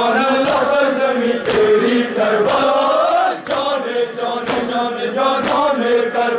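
Men's voices chanting a noha in unison, with a sharp collective slap of hands beating on chests (matam) about once a second, six strikes in all, keeping time with the chant.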